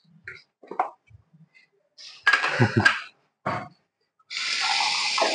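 Kitchen handling sounds: scattered knocks and clinks of pots and utensils, with a louder clatter midway. Near the end, water runs in a steady rush for about two seconds, likely as the saucepan is filled to boil eggs.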